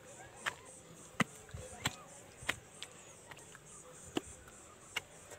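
Footsteps climbing concrete steps: sharp taps at a steady walking pace, about three every two seconds.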